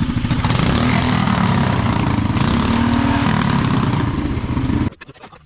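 Small off-road vehicle engine running hard with a rapid, rattly pulse, cutting off suddenly near the end.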